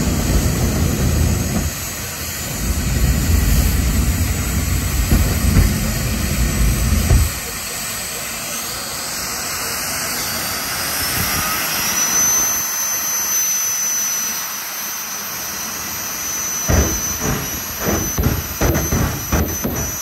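Race car engine noise at a racetrack, loud for about seven seconds with a brief dip near two seconds in. It then gives way to a quieter steady hiss with a high whine that rises and holds. A run of regular thumps starts near the end.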